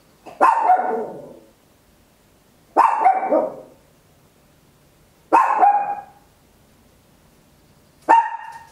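A Papillon, a toy-breed dog, barking: four loud single barks about two and a half seconds apart, each trailing off quickly.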